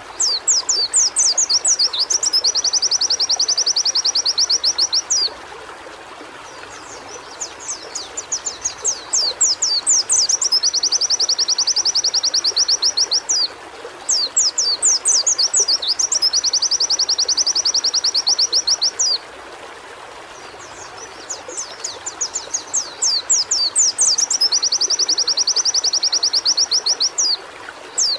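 White-eye (pleci) singing: high phrases of quick sweeping notes that run into a long, fast trill, repeated with short pauses between them over a steady background hiss.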